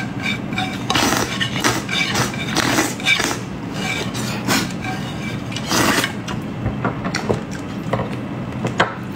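Close-up eating sounds: slurping and chewing of braised intestines and noodles, with chopsticks clicking and scraping on the tray. Near the end, gulps as a drink is poured into the mouth from a bottle.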